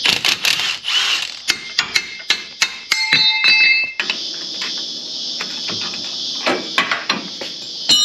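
Sharp metallic knocks and clinks of tools and steel parts as the old leaf-spring U-bolts and nuts come off, with a brief ringing clink partway through, then a steady hiss with a few more knocks.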